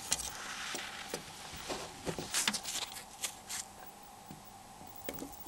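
Scattered small clicks and taps of plastic phone-housing parts being handled with gloved fingers and a metal dental pick, with a faint steady hum underneath. The sharpest click comes at the very end.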